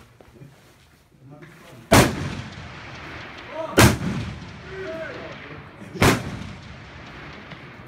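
Three long-range rifle shots fired from the prone position, about two seconds apart, each cracking loudly and trailing off in a long rolling echo.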